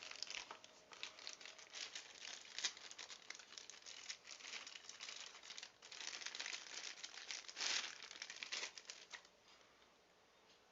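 Plastic packaging crinkling and rustling in bursts as it is handled and opened by hand. The crinkling stops about nine seconds in.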